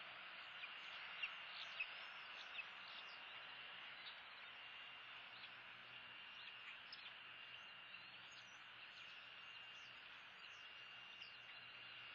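Faint outdoor nature ambience from an eagle-nest camera microphone: a steady hiss with a thin, steady high tone and scattered short high chirps, a few sharper ones between one and three seconds in.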